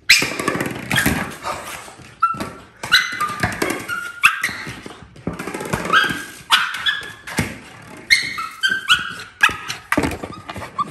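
Staffordshire Bull Terrier puppy making a string of short yips, whines and barks, many rising in pitch, while playing with a ball, with sharp knocks and scuffs of the ball and her paws in between.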